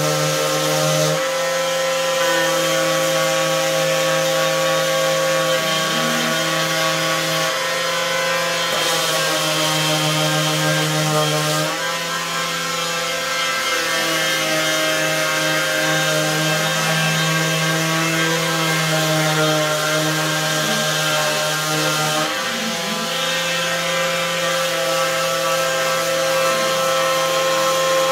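DeWalt cordless random orbital sander running steadily against wood, sanding the stain off the raised letters of a carved sign down to bare wood. Its hum shifts slightly in pitch a few times as it works.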